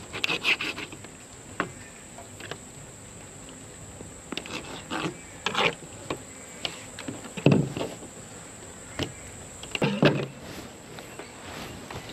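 Scattered short scrapes and knocks, a dozen or so over the span, with the loudest about half a second in and then near the middle and near the end, over a steady high-pitched whine.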